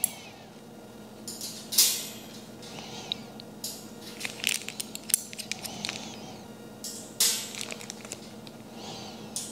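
Metal hooks clinking and scraping against a chrome wire shelf frame as they are hung on one after another: a string of sharp metallic clinks, the loudest about two seconds in and again about seven seconds in.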